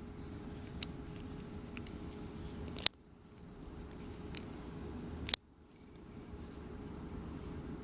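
Lockback folding knife clicking as it is worked: two sharp metallic snaps about two and a half seconds apart as the blade and lock lever engage, with a lighter click and small ticks between.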